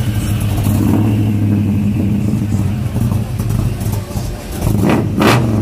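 Chevrolet C-10 pickup's engine idling steadily with a low, even exhaust note, and two short hissing bursts near the end.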